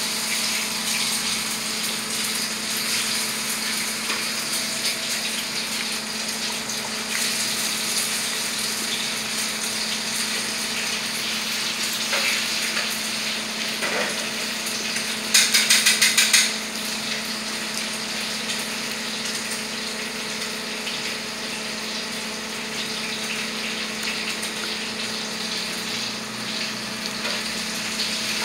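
Food frying in hot oil in a pan on a gas stove, a steady sizzle. About halfway through comes a short run of about six quick clicks, the loudest sound here.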